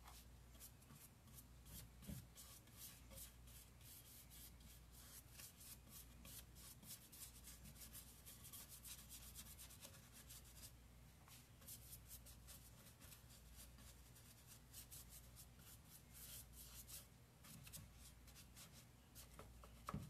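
Faint rubbing as dark furniture wax is worked by hand into a painted wooden drawer front, in many short scratchy strokes.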